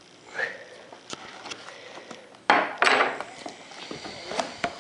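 Packaging handling: a clear plastic camera case being worked loose and pulled out of its cardboard box, with scraping and rubbing and a few sharp clicks. A louder scrape comes about halfway through.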